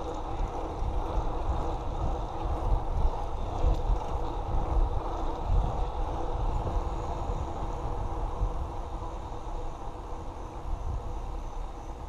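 BMX bike tyres rolling along wet asphalt, a steady road noise, with wind buffeting the handlebar-mounted camera's microphone.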